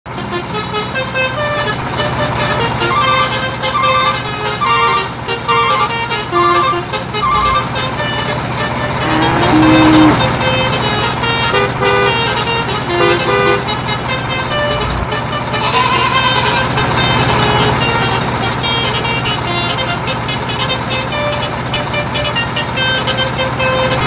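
Motor vehicle engine running steadily, with a tune of short, repeated tones over it.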